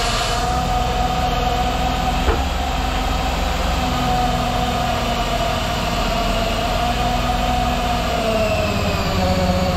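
A motor vehicle's engine running steadily with a whine, its pitch sagging slightly near the end, and one brief knock a little over two seconds in.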